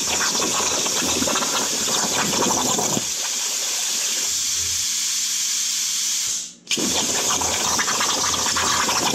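Hypertherm Powermax65 air-plasma torch cutting sheet metal on a CNC plasma table: a loud, steady hiss. About six and a half seconds in the arc cuts out for a moment and then re-fires.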